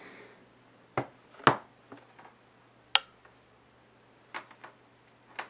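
Handling noise from a white MacBook laptop and a USB cable: a handful of light clicks and taps, the sharpest about three seconds in with a brief ring.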